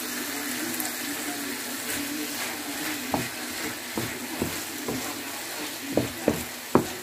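Chicken and vegetables sizzling steadily in a frying pan. From about halfway through, a wooden spatula stirs them and knocks against the pan about seven times, loudest near the end.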